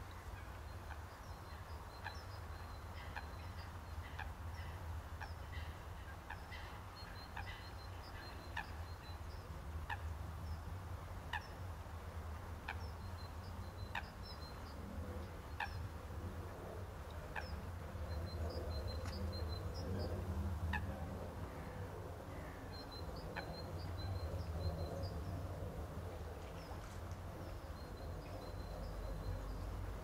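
Wild birds calling: repeated short, sharp calls every second or two and bursts of high twittering, over a low steady rumble.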